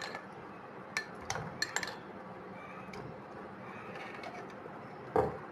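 Steel spoon clinking against glass as soaked almond gum is spooned from a glass bowl into drinking glasses: a few sharp clinks in the first two seconds, then a duller knock near the end.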